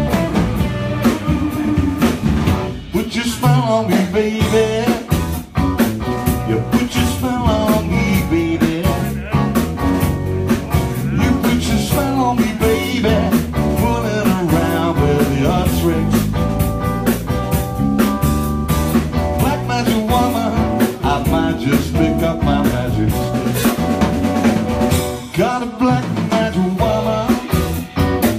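Live band playing loudly: electric guitars over a drum kit, with a steady beat of drum and cymbal hits.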